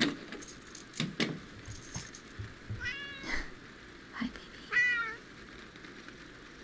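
A house cat meowing twice, two short calls about a second and a half apart. In the first two seconds there are sharp clicks and a brief metallic jingle.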